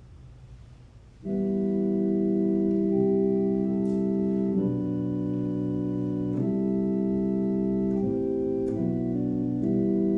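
Organ music: after a second of quiet, an organ comes in and plays slow, steady held chords that change every second or two.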